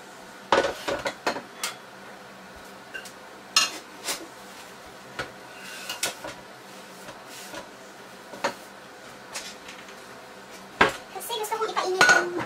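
Scattered clinks and knocks of kitchenware being handled: several sharp separate knocks, with a heavy frying pan brought back onto an electric stove hotplate near the end.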